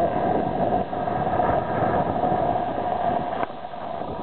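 Wind rumbling and buffeting on the microphone, with a steady hum underneath.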